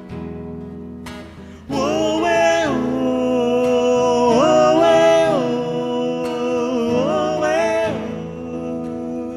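Live acoustic guitar accompaniment of a gospel song's instrumental interlude. About two seconds in, a sustained lead melody comes in over it, in three long phrases that glide between notes.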